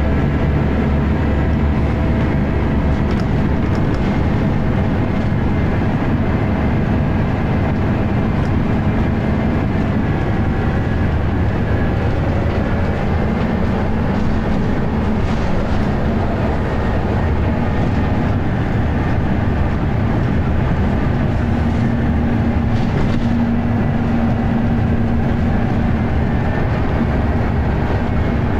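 Scania L94UB bus's diesel engine running at a steady cruise, heard from inside the passenger saloon over a loud rumble of road and wind noise.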